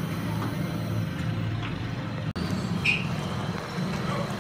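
Gas stove burner running at a medium flame under a covered steel cooking pot: a steady low rumble that cuts out for an instant about halfway.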